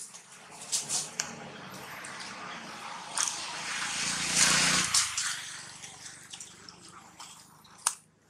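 Macaques scuffling on dry leaf litter: rustling, crackling and scraping with scattered sharp clicks, growing to a loud burst of scuffling about four to five seconds in and then easing off.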